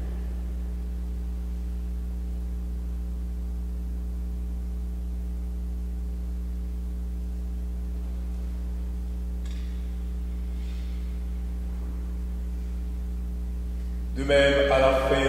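Steady electrical mains hum, a low buzz with several fixed higher overtones. A man's voice comes in near the end.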